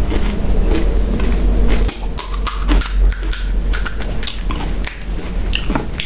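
Close-miked chewing of pani puri: irregular crunching and crackling of the crisp fried puri shells, busiest in the second half.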